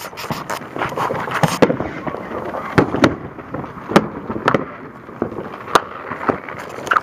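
Fireworks going off: scattered sharp pops at irregular intervals over a steady crackling hiss.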